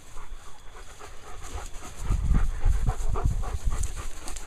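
Dogs panting hard while playing rough, with dull low rumbles coming and going in the second half.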